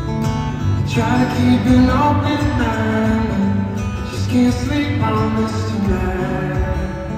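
A man singing a melody over his own acoustic guitar, played live solo, the guitar's picked notes and strums carrying on beneath the voice.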